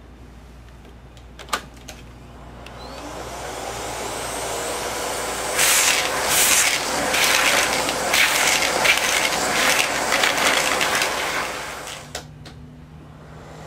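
Miele S4 Neptune canister vacuum switched on with a click, its motor running up over a few seconds. The suction noise then grows louder and uneven for several seconds before dropping away near the end.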